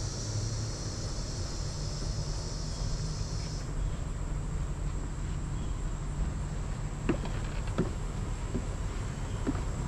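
A steady high-pitched insect chorus that cuts off abruptly about a third of the way in, over a low rumble. Near the end come a few short knocks, like footsteps on wooden deck boards.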